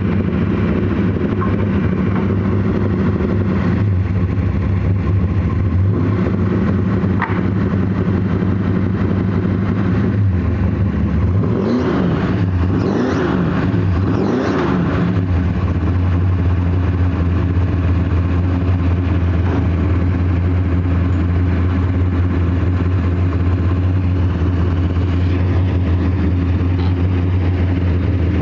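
A 1969 Camaro's 509-cubic-inch big-block V8, fed by dual Holley Dominator carburettors, idling loudly. About halfway through it is revved in a few quick throttle blips, its pitch rising and falling each time, then it settles back into a steady idle.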